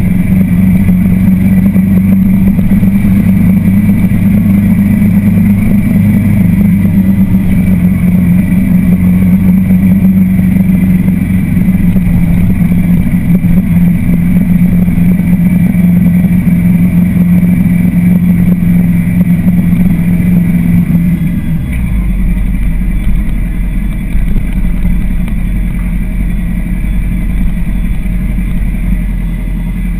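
Motorcycle engine running steadily with a constant drone while under way. About 22 seconds in, the note drops lower and gets a little quieter as the bike slows.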